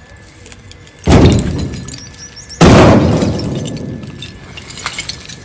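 Two loud crashes of construction rubble being dumped, about a second and a half apart, each clattering and dying away over a second or so.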